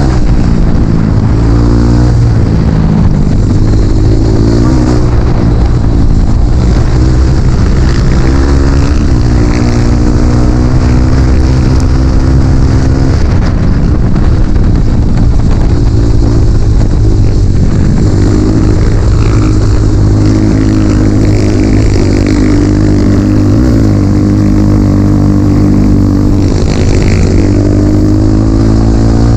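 Dirt bike engine running loud under load, its pitch rising and falling over and over as the throttle is opened and rolled off.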